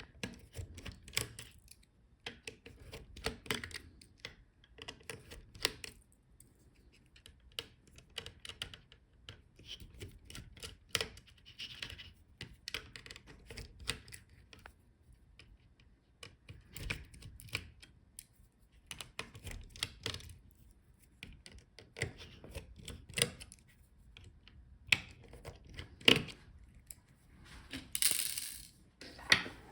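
Small precision screwdriver and tiny screws being worked out of a laptop's heatsink-and-fan assembly: scattered light metallic clicks and taps, with a brief scraping rustle near the end.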